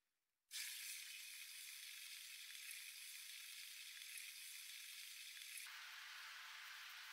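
Faint steady hiss that cuts in about half a second in and changes in tone about five and a half seconds in.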